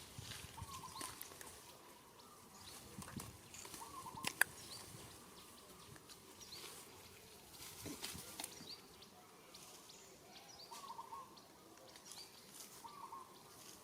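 Quiet outdoor animal sounds: a short call repeating every couple of seconds, small high chirps and light rustling, with one sharp click about four seconds in.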